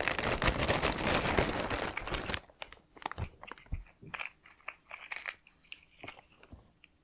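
Plastic zip-top bag being pulled open and crinkled, a dense crackle for about two and a half seconds, then only faint scattered rustles and small clicks as things are handled.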